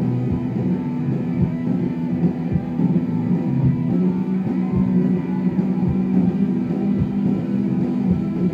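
Live rock band playing loud, with bass guitar, electric guitar and drums. The recording sounds muffled and bass-heavy, which the recordist puts down to a hand over the phone's microphone.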